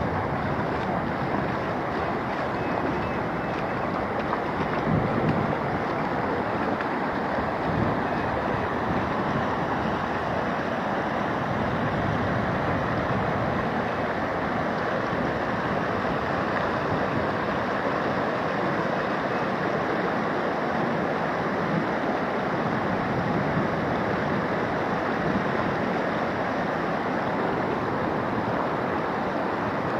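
Floodwater rushing steadily, an even noise without rhythm or pitch, with a few low wind buffets on the microphone in the first several seconds.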